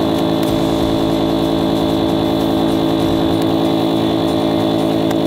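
A small motor running steadily at one constant pitch, pumping air through a hose into an inflatable air tent.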